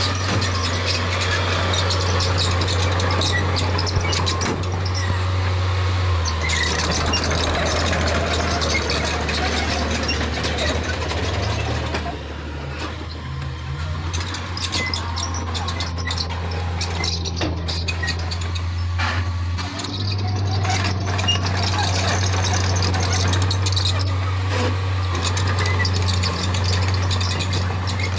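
Bulldozer's diesel engine running steadily under the squealing and clanking of its steel tracks, the engine note shifting a few times as the load changes.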